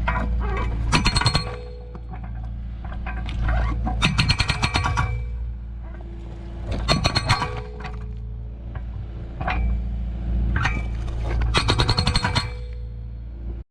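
Okada hydraulic breaker on a Kubota KX057 compact excavator hammering concrete. It strikes in four bursts of rapid, ringing metallic blows over the excavator's steady diesel engine.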